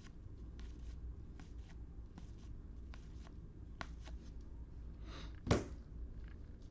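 Trading cards being handled and flipped: faint light clicks and rustles, with one louder knock about five and a half seconds in.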